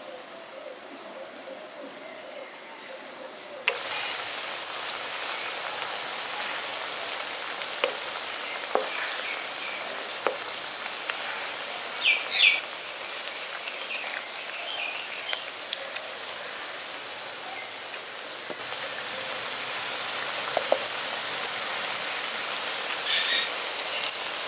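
Semolina pakoras deep-frying in hot oil in a kadai, a steady sizzle that grows louder about four seconds in. A wooden spatula knocks against the pan a few times as the pakoras are turned, and a bird chirps briefly about twelve seconds in.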